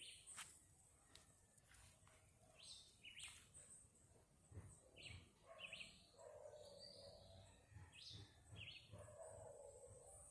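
Faint outdoor ambience with birds chirping: short high calls scattered through, over a low background hiss.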